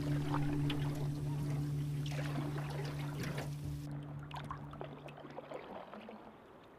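Canoe paddles stroking through the water with dripping and trickling, over a low steady hum that fades away. The water sound thins out about four seconds in and it is very quiet near the end.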